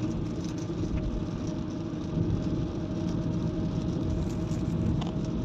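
Steady car cabin noise while driving on a wet road: low engine and tyre rumble, with faint scattered ticks.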